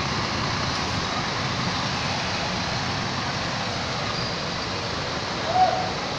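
Tour coach diesel engines running as the buses manoeuvre, a steady noisy rumble. A brief shout rises above it about five and a half seconds in.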